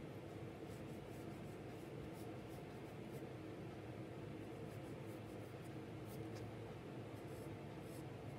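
Graphite pencil scratching on paper in a run of short, faint strokes as lines of a drawing are gone over.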